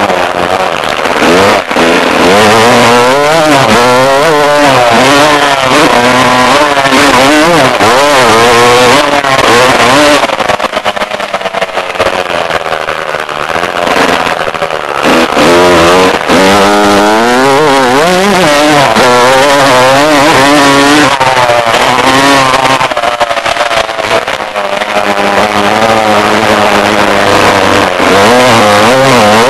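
Dirt bike engine heard close up from a camera on the bike, revving up and falling back again and again as the rider works the throttle around the track. The engine eases off for a few seconds about a third of the way in, then climbs again.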